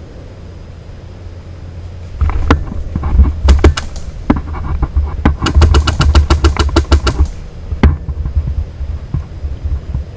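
Airsoft guns firing: single shots and bursts of sharp cracks starting about two seconds in, with a long full-auto burst of about ten shots a second in the middle, over a low rumble.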